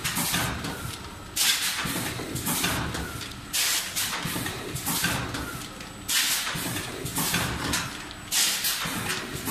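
Automatic sachet packing machine running, with a sharp hiss of compressed air from its pneumatic cylinders about every two and a half seconds, smaller hisses between, and a steady mechanical rumble under it.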